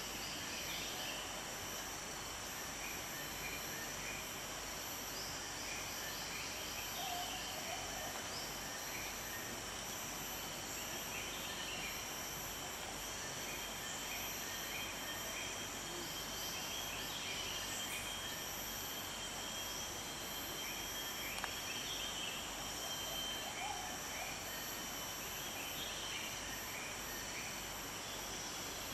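Insect chorus: several steady, high-pitched trills at different pitches, with groups of short chirps every few seconds and a couple of faint lower calls about seven and twenty-four seconds in.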